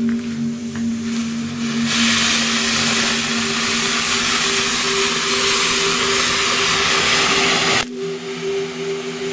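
Phantom Flying Stars firework fountain spraying sparks with a loud, steady hiss. The hiss comes in about two seconds in and drops off abruptly near the end, over a steady synth music drone.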